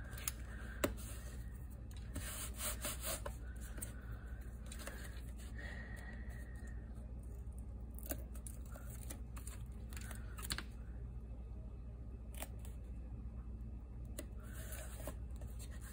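Faint paper-crafting handling sounds: scattered light clicks, taps and brief paper rustles and scrapes as paper pieces and small craft tools are handled, with a low steady hum underneath.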